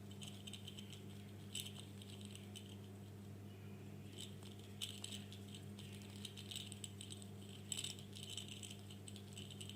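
A small toy ball rattling in short irregular bursts as a rainbow lorikeet plays with it, over a steady low hum.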